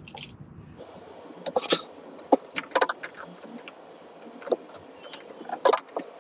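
Scattered metallic clinks and clatters of hand tools and fittings against a marine diesel engine as its stiff oil filter is worked loose.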